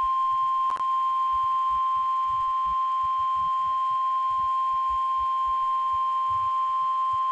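NOAA Weather Radio warning alarm tone: a single steady high-pitched tone held unbroken. It is the alert signal that comes before a severe weather warning is read out.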